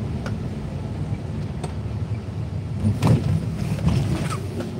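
Car in motion heard from inside the cabin: a steady low engine and road rumble, with a few light clicks and a brief louder knock about three seconds in.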